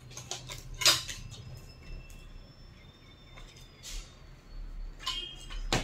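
Scattered small clicks and brief rustles of handling, the loudest about a second in, over a faint steady high-pitched tone.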